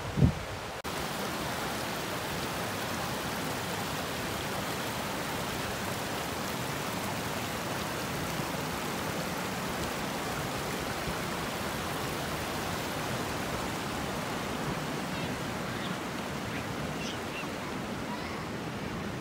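Shallow creek water rushing and rippling over rocks as it runs across the sand into the sea, blended with the steady wash of ocean surf. There is a brief low thump right at the start.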